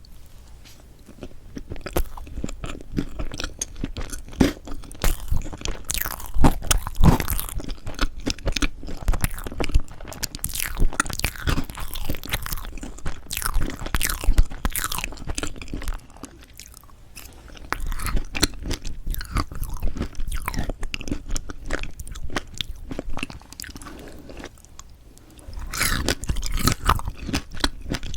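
Close-miked chewing and biting of strawberry chocolate fresh-cream cake, with crunchy, crackly mouth sounds. The chewing comes in bursts, with two short quieter pauses.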